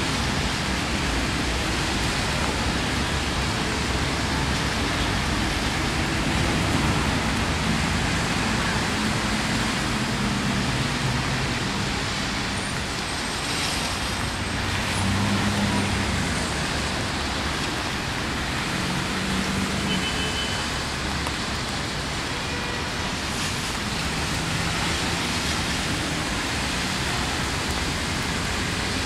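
Steady hiss of rain with city traffic underneath, the low hum of passing vehicles swelling and fading several times.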